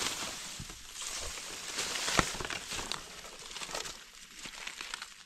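Grass blades and dry leaf litter rustling and crackling as a gloved hand pushes through the undergrowth, with a sharp click about two seconds in.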